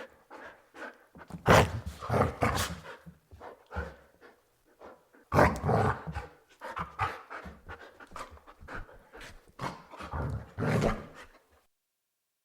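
Border Collie barking and growling in irregular bursts, the loudest about a second and a half in and again just past five seconds; the sound cuts off about a second before the end.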